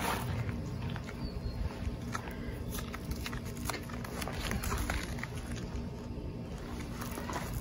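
Scattered light taps, scuffs and rustles of hands-on work, over a low rumble.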